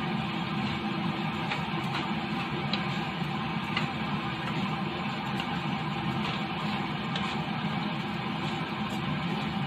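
Wooden spatula stirring and scraping dry rice with diced sausage and mushroom in a nonstick frying pan: a steady rustling with a few sharp knocks against the pan, over a steady hum.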